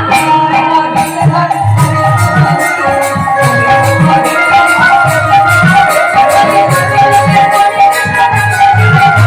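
Kirtan music: held melodic tones over a low drum beat, with fast, steady jangling of metal percussion.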